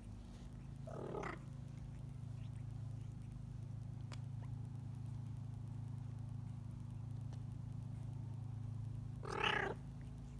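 Newborn Bengal kitten giving two short, high mews, about a second in and a louder one near the end, over a steady low purr.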